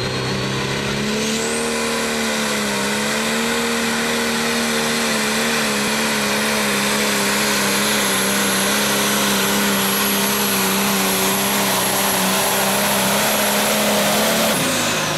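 John Deere Pro Stock pulling tractor's turbocharged diesel engine at full power, hauling the sled. The turbo whistle rises sharply about a second in and holds high and steady over the engine. Near the end the whistle and the engine fall away together as the throttle comes off at the end of the pull.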